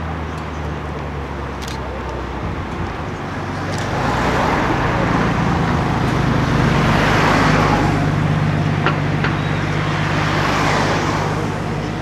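Porsche 993 Targa's air-cooled flat-six engine running steadily at low speed as the car drives slowly past, louder from about four seconds in and loudest just past the middle, over street traffic noise.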